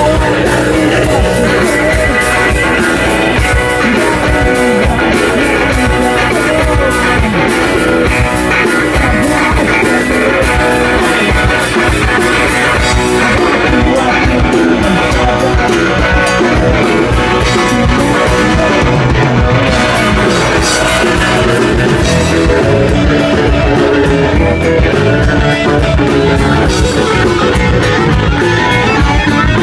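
A rock band playing a loud instrumental passage, with guitar and a drum kit keeping a steady beat.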